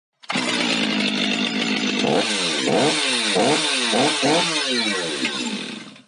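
Stihl MS 500i fuel-injected two-stroke chainsaw running steadily. From about two seconds in the throttle is blipped five or six times, the engine revving up and falling back quickly. It fades out just before the end.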